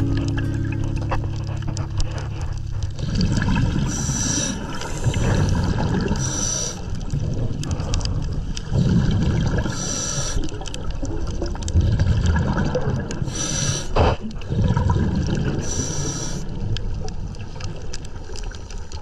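Scuba diver breathing underwater through a regulator: a short hiss on each inhale about every three seconds, and bubbles rumbling out on the exhales between them.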